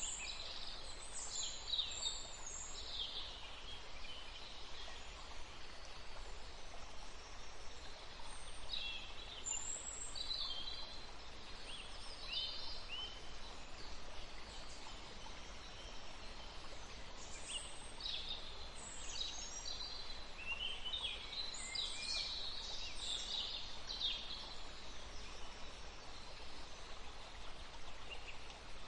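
Several songbirds chirping and whistling in quick overlapping bursts, in clusters near the start, around the middle and again later. Under them runs the steady rushing of a flowing river.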